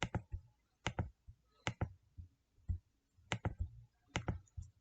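Computer mouse clicking: a string of sharp clicks, mostly in quick pairs about a second apart, with a few single ones in between.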